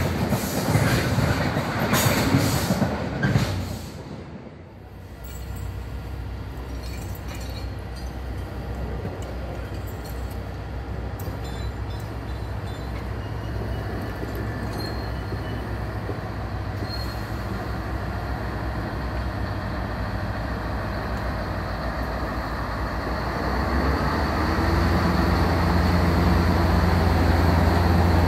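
Freight train wagons rolling past on the rails for the first few seconds. Then the diesel engine of a Plasser & Theurer 08-275 Unimat 3 SY track tamping machine runs with a steady low drone as the machine rolls slowly past. The drone grows louder near the end.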